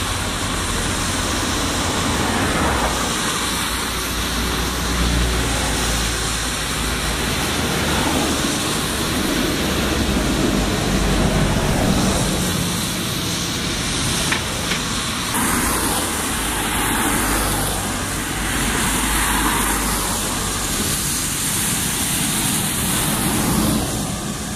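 Road traffic on a wet road: tyre noise from cars passing one after another, swelling and fading every few seconds.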